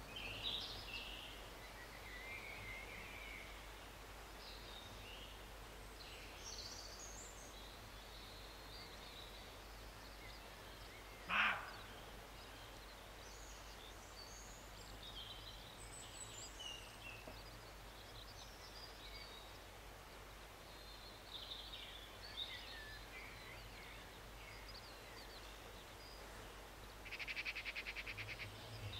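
A roe deer gives a single short bark about eleven seconds in, the loudest sound here, over faint scattered birdsong. Near the end an insect starts a fast, buzzing chirr.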